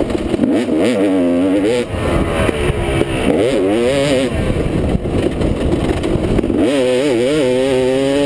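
Husqvarna TC250 two-stroke single-cylinder dirt-bike engine being ridden, its pitch rising and falling over and over as the throttle is opened and rolled off.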